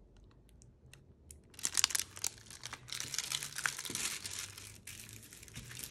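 Clear plastic film over a diamond painting canvas crinkling and crackling as it is handled. The film starts about a second and a half in, after a few light clicks, and goes on steadily.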